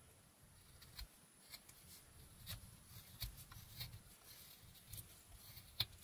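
Mora 122 carving knife slicing shavings from a basswood carving: a string of short, quiet cuts and scrapes at an uneven pace, the sharpest just before the end.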